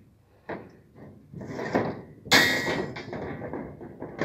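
Steel clanking: a few knocks, then one loud metallic clang with a short ringing tail about two seconds in, as steel reinforcement bars are handled on steel scaffolding.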